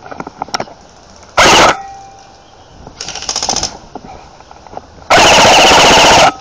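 Airsoft rifle firing on full auto close to the microphone: a short burst about a second and a half in, a fainter burst around three seconds, and a longer burst of about a second near the end. The two loud bursts are loud enough to distort.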